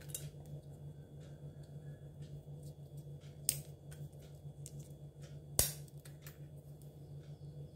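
Dry cinnamon bark being snapped by hand into pieces over a stainless steel pot: small dry cracks and clicks, with two sharper snaps at about three and a half and five and a half seconds in. A steady low hum runs underneath.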